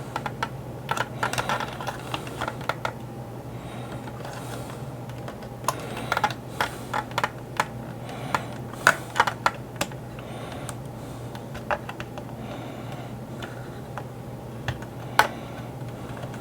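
A small screwdriver prying and scraping at the hard plastic landing gear covers of a 1983 G.I. Joe Skystriker toy jet: irregular light clicks and scrapes, over a steady low hum.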